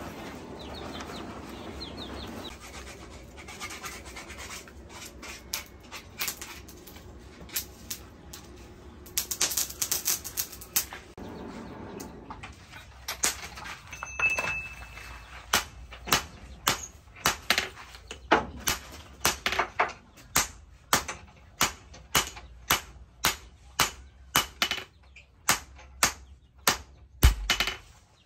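Hand hammer striking a red-hot axe head on a steel post anvil, hot-forging the broken blade back into shape: scattered knocks and clinks at first, then steady ringing strikes about two a second through the second half, the loudest just before the end.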